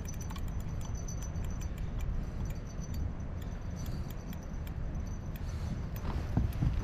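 Steady low wind noise buffeting the microphone in a snowstorm, with scattered faint, light metallic clicks and ticks over it.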